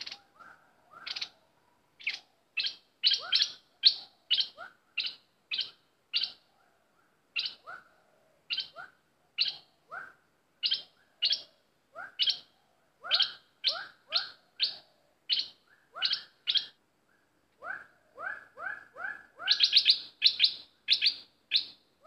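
A bulbul calling over and over in short, sharp, chirpy phrases, about one or two a second, quickening into a rapid run near the end. This is a caged decoy bird calling vigorously to lure wild birds.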